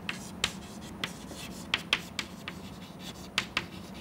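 Chalk writing on a chalkboard: about ten sharp taps at uneven intervals as letters are chalked onto the board.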